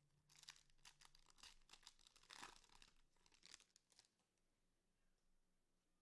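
Faint crinkling and tearing of a trading-card pack's plastic wrapper as it is torn open, in irregular crackles that stop about four seconds in.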